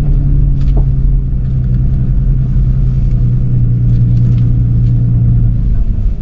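Toyota FJ Cruiser's V6 engine and drivetrain running steadily while driving up a rough, rocky forest road, with a few faint rattles; the engine note drops near the end.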